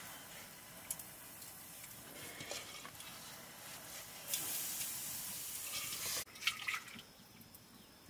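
A hand scrubbing and swishing water around the inside of a wet metal bowl, with a few light clinks and a steadier swishing for about two seconds just past the middle.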